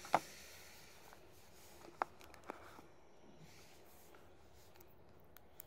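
Faint room tone with a few light clicks and taps from a smartphone and its box being handled: a sharp click just after the start, another about two seconds in, and a couple of fainter ones.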